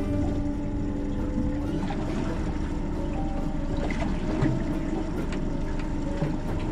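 Boat engine running steadily, a continuous low rumble.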